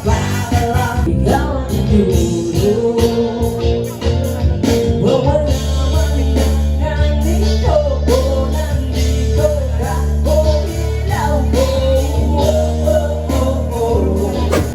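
Background pop music with a gliding lead melody over steady sustained bass notes.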